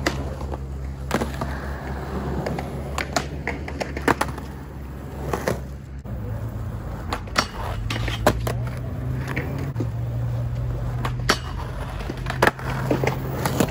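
Skateboard wheels rolling on concrete, with repeated sharp clacks as the board pops, hits a metal rail and slaps down on the ground.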